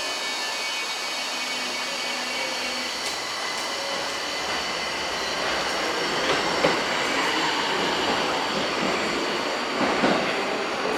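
Tokyo Metro 1000 series subway train moving through the station, with a steady electric whine and wheels running on the rails. It gets louder about halfway, with a few sharp clanks and some wheel squeal.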